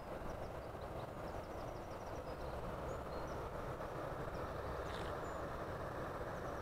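Steady rushing of river water pouring over a low weir, with faint, scattered high chirps of small birds.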